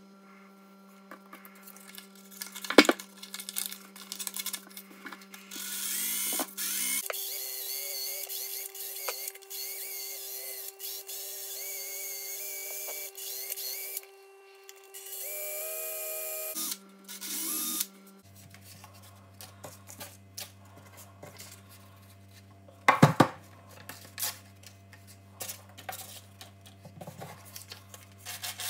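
Cordless drill spinning a screwdriver while sandpaper is pressed against its wooden handle: a whirring drill with gritty sanding noise, running in two long stretches with quieter pauses. Two sharp knocks stand out, one about three seconds in and one near the end.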